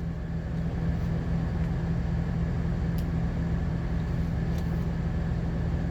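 Steady low drone of a semi-truck heard from inside the cab, running evenly with no change.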